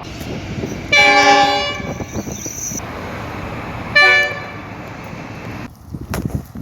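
Train horn sounding two blasts: a longer one about a second in and a short one about four seconds in, over a steady background rumble.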